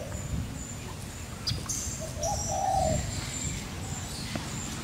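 Birds calling: a dove gives a short low coo about two seconds in, over thin high chirps, with a low rumble underneath.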